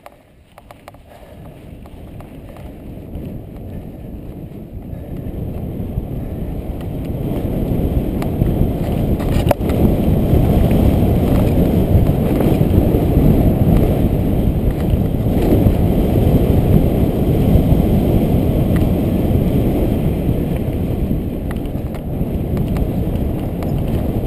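Wind rumbling on a helmet camera's microphone as a mountain bike descends a dirt trail, with the knobby tyres rolling over the dirt. The rumble builds over the first several seconds as the bike gathers speed, then holds steady. One sharp click comes about nine and a half seconds in.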